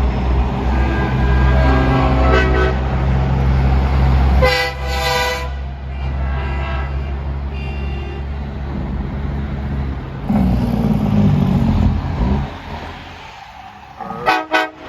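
Trucks passing in a horn-blowing parade: a heavy engine rumbles under several horn blasts, the loudest about four and a half seconds in. Another engine rumbles loudly past around ten seconds in, and there are two or three quick horn toots near the end.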